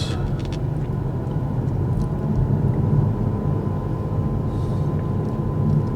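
Road and tyre noise inside the cabin of a moving Kia EV6 electric car: a steady low rumble with no engine sound, and a faint steady high tone throughout.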